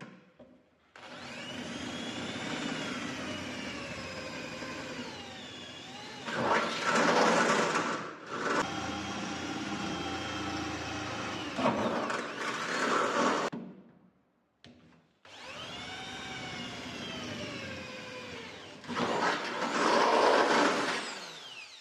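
Handheld electric drill run in two long spells, the motor's whine sagging and recovering in pitch as the bit loads up, with rougher, louder stretches while it cuts through metal.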